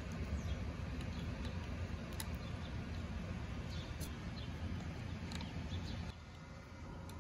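Scattered light clicks and scrapes of a screwdriver and small screws being worked into a handlebar display clamp, over a steady low rumble that drops away about six seconds in.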